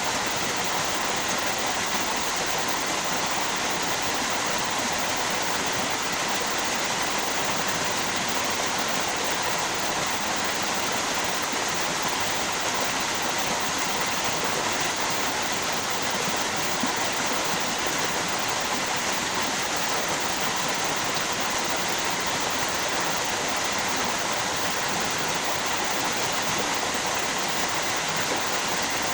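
Steady rushing of flowing water from a river and waterfall, an even hiss without pauses.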